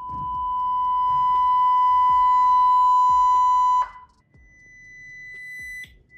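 Electric motor of a Talaria XXX giving off a steady electronic tone while the Nucular P24F controller measures it during auto-setup calibration. The tone holds one pitch for about four seconds, stops, then a higher tone swells in near the end.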